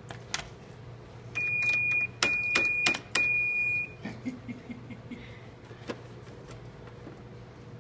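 Electronic cash register beeping as its keys are pressed: three long, even high beeps, each set off with a click of a key, starting about a second in, then a few softer clicks.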